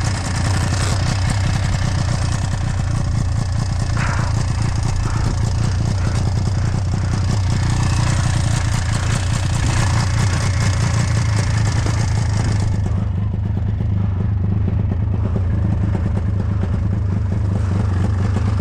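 Snowmobile engine running steadily under load as it ploughs through deep snow, with a hiss over it that drops away about two-thirds of the way through.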